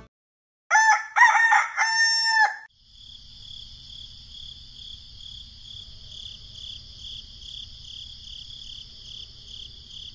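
A rooster crowing once, a full cock-a-doodle-doo ending in a long held note. It is followed by a quieter, steady high-pitched pulsing sound over a low rumble.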